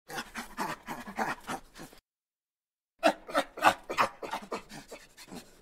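Rapid panting animal calls, in two bursts of about two seconds each with a one-second break between.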